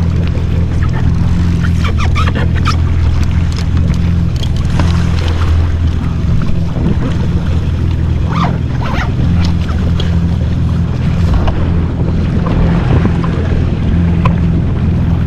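Yamaha jet ski's engine idling with a steady low hum, with water splashing and slapping around the hull now and then and wind on the microphone.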